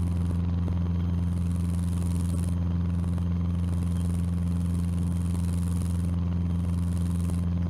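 Cessna 150's four-cylinder Continental O-200 engine and propeller running steadily in flight, a constant low drone that holds one pitch throughout.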